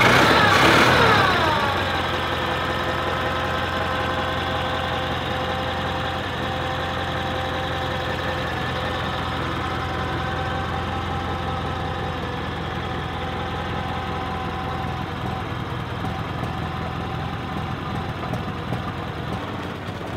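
1927 Model T Ford four-cylinder side-valve engine running as the fire truck pulls away and drives slowly. Over the first two seconds a loud whine falls in pitch, and the engine then runs on evenly.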